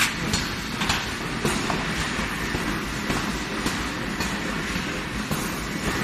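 Steady metallic clattering rumble of red-hot steel balls rolling along a rotating spiral roller conveyor, with irregular sharp clinks of metal on metal over a low machine hum.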